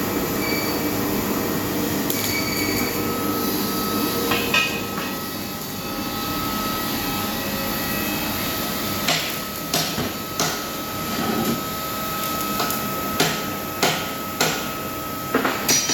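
Hammer blows on metal: one strike about four seconds in, then a run of blows from about halfway through, roughly one every half second, over a steady background hum.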